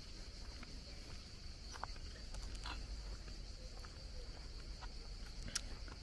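A steady high chirring of insects in summer outdoor air, with scattered faint clicks and one sharper click near the end.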